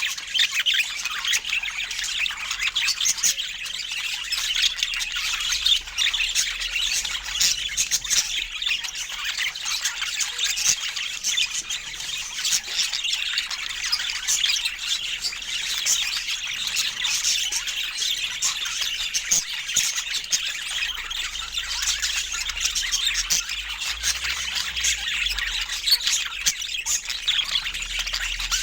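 Pet budgerigars chattering without a break, a dense run of warbles, chirps and squawks.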